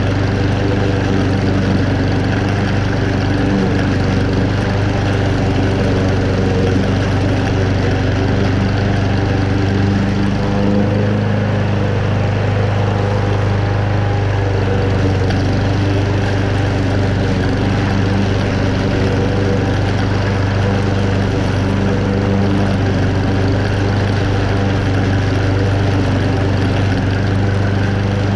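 Toro Super Recycler walk-behind lawn mower's Honda single-cylinder four-stroke engine running steadily at cutting speed, with the blade mowing moderately wet, tall grass. The engine pitch wavers and dips briefly a little before the middle, then settles again.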